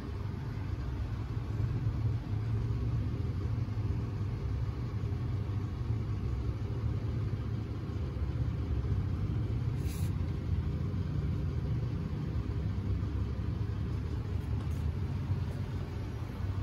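Cats purring close to the microphone: a steady low rumble. A brief click about ten seconds in.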